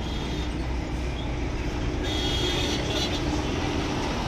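Bus diesel engine running steadily under a low rumble of road noise.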